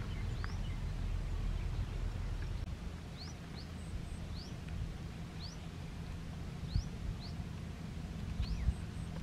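A small bird repeating short, high, rising chirps about once or twice a second over a steady low rumble, with two brief knocks in the second half.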